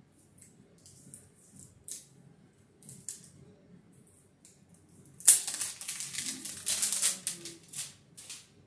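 Cellophane wrap being stripped off a length of PVC plastic wiremold raceway: faint crinkles at first, then about five seconds in a sudden loud run of crinkling and crackling plastic film that lasts about three seconds.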